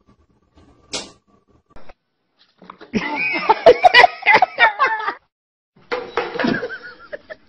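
A cat meowing and yowling in a loud run of wavering calls with sharp clicks among them, then again more briefly near the end.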